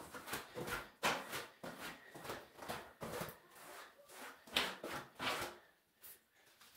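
Rubber floor squeegee with a cloth at its head dragged back and forth across a wet ceramic tile floor in a run of short scraping strokes, a few a second, pulling water off the floor. The strokes stop about two thirds of the way through.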